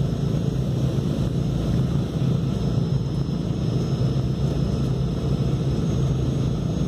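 Douglas DC-3's twin radial engines running at low taxi power, a steady low drone heard from inside the cabin.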